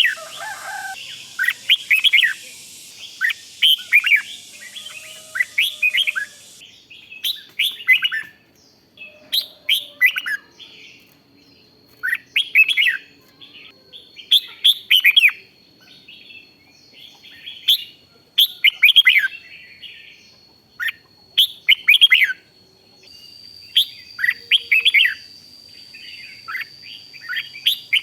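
Red-whiskered bulbul singing: short, bright warbled phrases repeated every second or two. A faint steady high whine sits behind the song from about seven seconds in.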